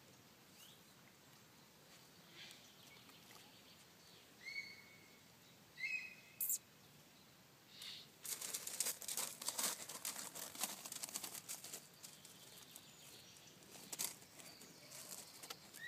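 Short, sharp calls of Eurasian coots on the pond, heard a few times. A stretch of dense crackling and crunching noise runs through the middle and is the loudest sound.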